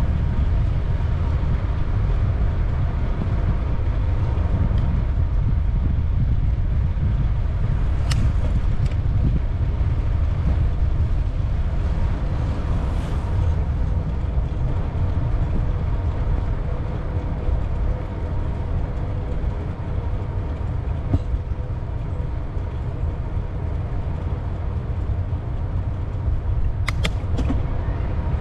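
Steady rumble of wind on the microphone and bicycle tyres rolling while riding, with a few brief clicks about eight seconds in and again near the end.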